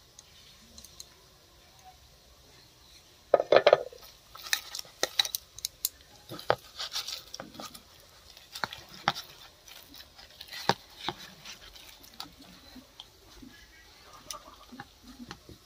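A hand squishing and kneading thick gram-flour batter with sliced onions and green chillies in a steel bowl, with irregular clicks and knocks against the bowl. The loudest is a clatter a little over three seconds in, and the sounds thin out after about eleven seconds.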